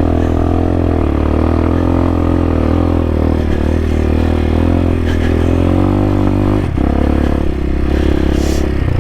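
CSC TT250 dirt bike's single-cylinder four-stroke engine running at steady low revs while riding, with a brief drop in the engine note about two thirds of the way through.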